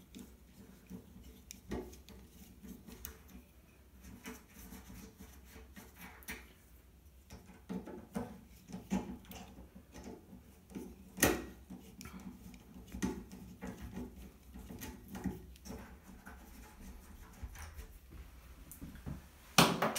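Light, scattered clicks and rubbing of a small screwdriver backing short screws out of a doorknob, with a sharper click about eleven seconds in.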